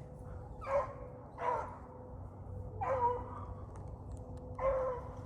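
Beagle baying as it trails a rabbit, four separate drawn-out calls spaced a second or more apart, over a faint steady hum.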